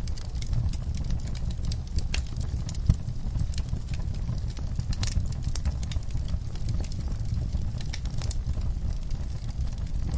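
Wood fire crackling in an outdoor firepit: scattered sharp pops and snaps over a steady low rumble, with one louder pop about three seconds in.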